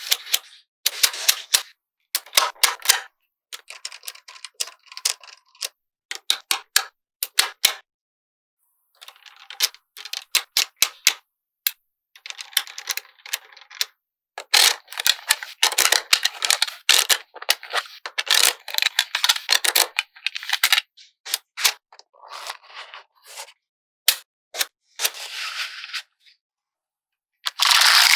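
Small magnetic balls clicking and snapping together in quick runs of sharp clicks, with rattling as strings of balls are handled and set in place. The clicks come in bursts separated by short, fully silent gaps.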